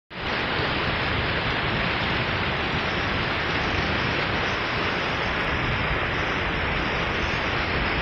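Glacier-fed mountain waterfall and its meltwater stream, a steady rush of falling and tumbling water.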